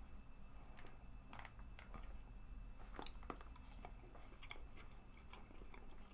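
Faint, irregular small clicks and crunches of sushi being chewed and nibbled at close range.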